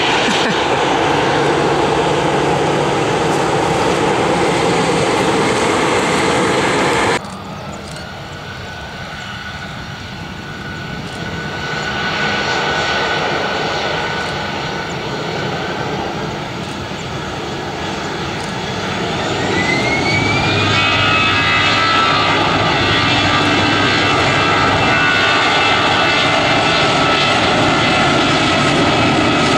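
Airliner jet engines running loudly, cut off abruptly about seven seconds in and replaced by a second Airbus's engines. These build, with a whine rising in pitch about twenty seconds in and then holding steady as the engines spool up.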